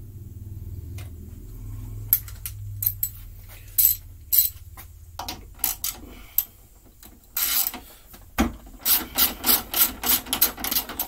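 Socket ratchet wrench clicking in short runs as bolts on a push-mower deck are backed off, ending in a steady run of about four clicks a second.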